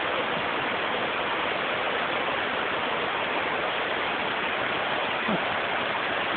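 Steady rushing of a river running as a sheet of water down a huge smooth rock slab and splashing into a pool at a natural rock-slide waterfall.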